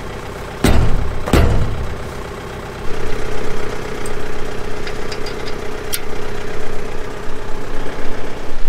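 Two heavy metal knocks about a second in as a tractor's lower lift arm is worked onto a rotary cutter's hitch pin, over a steady engine rumble. From about three seconds in a steadier hum sets in, with a few light metallic clicks as the linch pin goes in.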